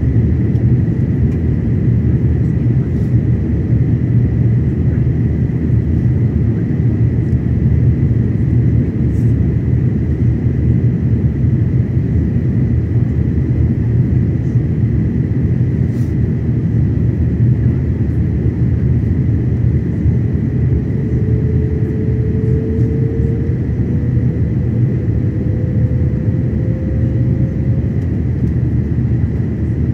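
Steady low rumble of an Airbus A330-900neo's cabin on approach, from its Rolls-Royce Trent 7000 engines and the airflow, with a thin steady whine above it. About two-thirds of the way through, a faint tone comes in and rises slightly in pitch.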